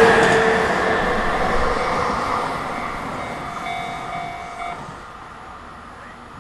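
Electric train on the JR Tokaido Line running past and fading steadily as it pulls away.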